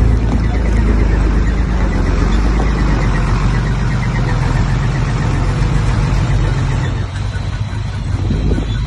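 Bulldozer's heavy diesel engine running loudly, easing off about seven seconds in.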